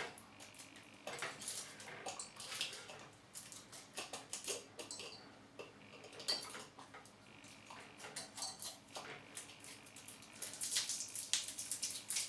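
Small metal scissors snipping clear sellotape around the rim of a glass bottle: a run of faint, irregular snips and clicks.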